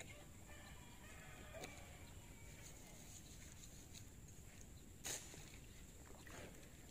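Quiet outdoor ambience with a thin, steady high-pitched tone. A faint, distant animal call comes in the first two seconds, and a single sharp click about five seconds in.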